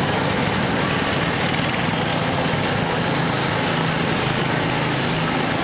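Several small go-kart engines running steadily as a group of karts drives past.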